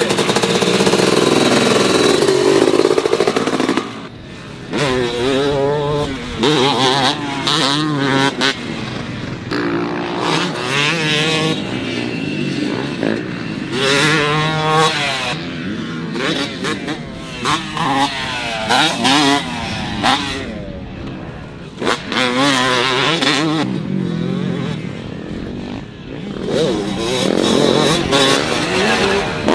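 2005 Yamaha YZ250 two-stroke dirt bike engine revving hard while being ridden on a motocross track. The pitch climbs and falls again and again as the rider works the throttle and shifts through the gears.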